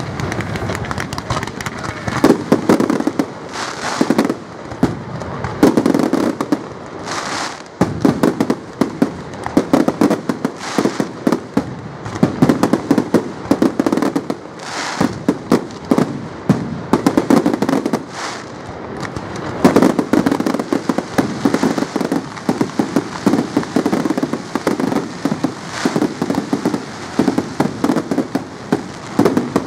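Display fireworks going off continuously: rapid crackling and popping with dense strings of bangs, low booms from bursting shells, and several hissing whooshes of rockets and shells going up.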